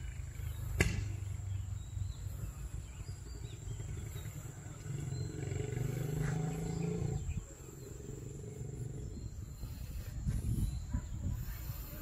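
Outdoor ambience: a steady high insect drone over low rumbling noise. There is a sharp click about a second in, and a low humming drone from around the middle that stops suddenly a couple of seconds later.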